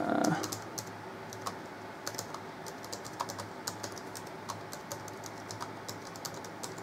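Typing on the AlphaSmart NEO's keyboard: a quick, irregular run of light key clicks, several a second.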